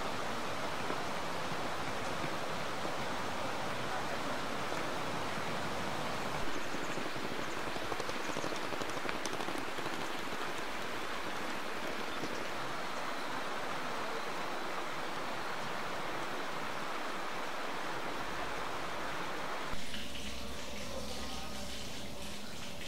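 Steady rush of a shallow, rocky river pouring over small stepped weirs and around stones. About 20 seconds in it changes abruptly to hot-spring water splashing into a stone bath in a small room.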